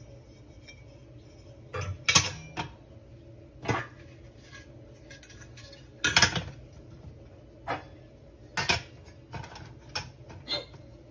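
Stainless steel parts of a Vevor electric cream separator being fitted onto its base by hand: a series of about ten sharp metal clinks and clunks, the loudest about two seconds and six seconds in.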